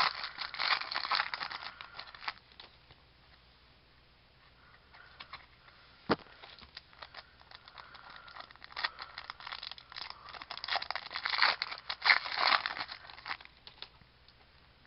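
Trading card pack wrapper crinkling and tearing as a pack is opened by hand. It comes in two spells, one for the first two seconds and one from about nine to thirteen seconds in, with a single sharp click about six seconds in.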